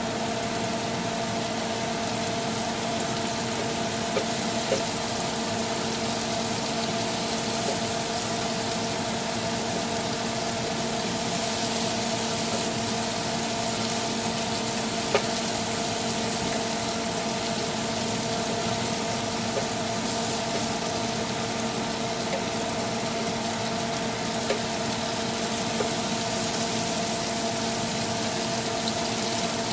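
Black tiger shrimp sizzling steadily in garlic butter in a grill pan as a wooden spatula turns them, with a few light knocks of the spatula against the pan. A steady hum runs underneath.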